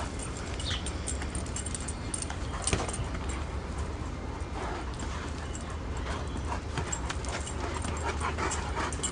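Two Great Danes playing on bare ground: scuffling paws, sniffing and a brief high dog whimper near the start, over a steady low rumble.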